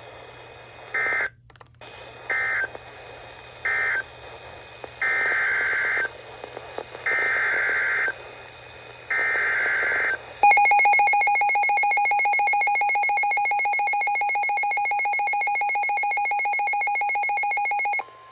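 Emergency Alert System SAME data bursts: three short bursts, the end-of-message code closing the first warning, then three longer header bursts opening the next alert. About ten seconds in, the EAS attention signal follows, a steady electronic tone of about eight seconds that cuts off suddenly.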